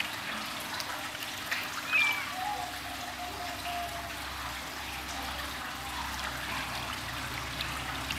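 Water trickling and splashing in a plastic tub as hands scoop and rub warm water, mixed with a flea treatment, into a kitten's thick fur. A brief high sound comes about two seconds in.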